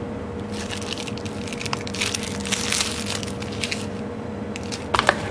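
Packaging crinkling and rustling in the hand as items are taken from the box, with a few sharp clicks near the end, over a steady faint hum.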